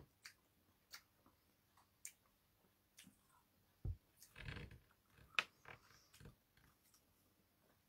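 Near silence with scattered faint clicks and taps, a low thump a little under four seconds in and a brief rustle just after.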